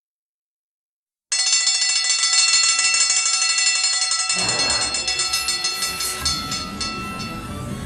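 A cartoon sound effect: a loud, fast-ringing bell starts suddenly, and a low rumble joins it about three seconds later.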